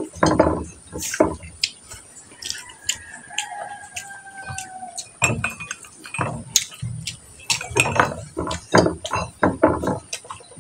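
A person eating with his hands: close chewing and mouth sounds, with small clicks and knocks of shrimp shells and fingers against a plate.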